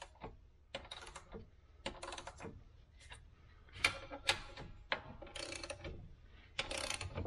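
Hand ratchet clicking in short, irregular bursts as it turns long bolts down on a heavy-duty truck clutch cover. The bolts are there to compress the pressure plate of an Eaton self-adjusting clutch without a press.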